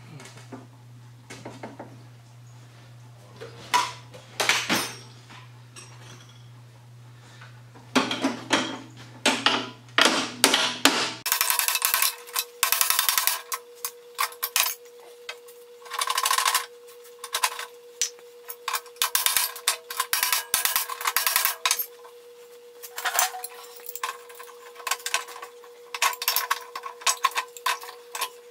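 Irregular metal clanks and knocks of hand tools on the steel linkage of an Ariens mower deck as the seized height-adjust parts are worked on. A low steady hum runs underneath and gives way about eleven seconds in to a steady higher tone.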